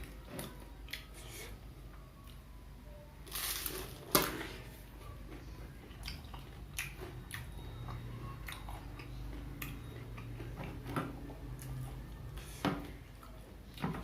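Close-miked biting and chewing of Indonesian fried snacks (gorengan), with scattered short mouth clicks and a sharper click about four seconds in.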